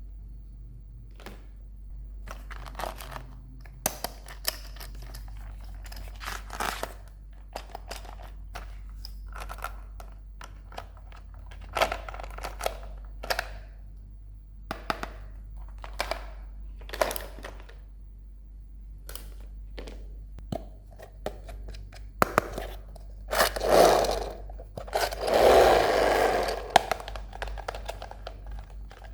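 Toy packaging being opened and handled by hand: scattered sharp taps, cracks and crinkles of plastic and cardboard, with two longer, louder rustling passes near the end.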